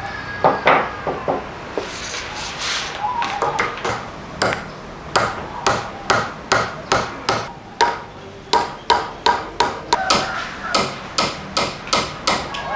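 Small metal punch struck with a mallet, cutting and puncturing dried cow hide laid on a wooden block. It makes sharp taps, a few scattered at first and then steady at about three a second through the second half.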